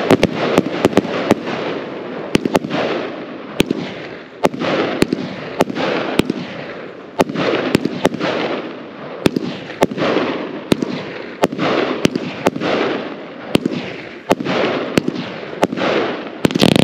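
Jekyll and Hyde 320-shot compound firework cake firing: a steady run of sharp reports, about two a second, from shots bursting overhead, with a rushing hiss between them. A denser, louder volley comes just before the end.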